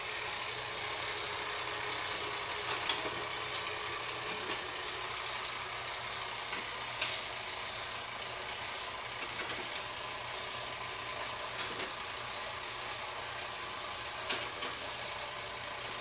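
Wind-up timer of a Perfection shape-fitting board game running steadily as it counts down, with a few sharp clicks of plastic pieces being pushed into the board.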